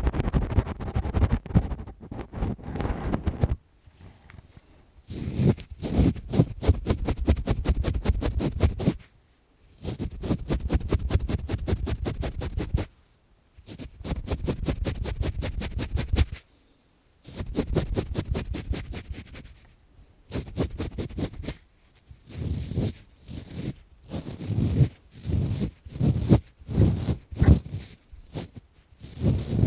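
Close-up scratching and rubbing on a microphone in fast strokes, the sound of ASMR ear cleaning. It comes in bursts of a few seconds split by short pauses, getting shorter and choppier near the end.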